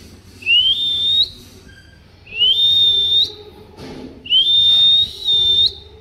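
Alexandrine parakeet whistling three times. Each whistle is about a second long, slides up and then holds one high note, ending with a short upward flick.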